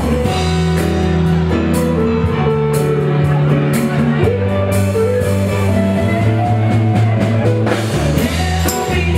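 Live band playing an up-tempo groove, with a singer over a prominent bass line, guitar and drums with cymbals.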